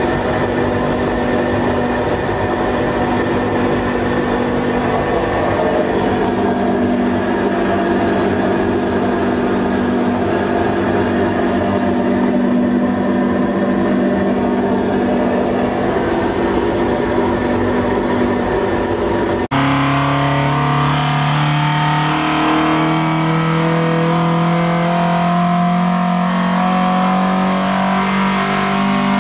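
Ford Pinto 2.1-litre single-overhead-cam four-cylinder engine with twin Weber carburettors running on an engine dyno, first holding a steady speed. About two-thirds of the way in it cuts abruptly to a high-rpm run whose pitch climbs slowly as the dyno sweeps it up past 5,000 rpm on a power run.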